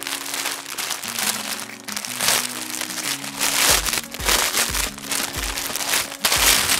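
Plastic packaging crinkling in loud bursts as a clear plastic bag is pulled open and handled, over background music whose low, steady beat comes in about halfway.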